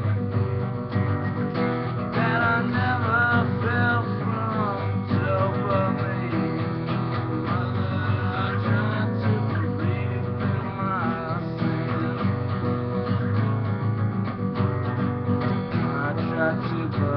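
Acoustic guitar strummed steadily through a chord progression, with a wavering higher melody line coming and going over the chords.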